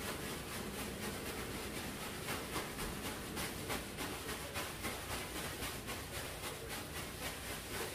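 Hands rubbing and mixing dry seasoned cornmeal fish-fry coating on a sheet of paper: soft, irregular rustling over a steady hiss.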